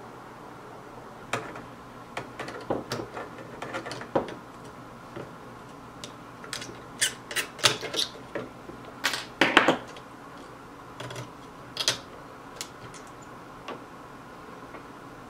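Hand tools clicking, tapping and scraping against the metal chassis and terminal board of an open Fender Champ tube amp: irregular sharp clicks and short scrapes, busiest and loudest a little past the middle.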